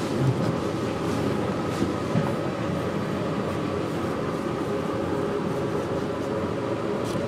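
Steady mechanical drone with a faint hum, with a few light knife clicks on a plastic cutting board as a cucumber is sliced lengthwise.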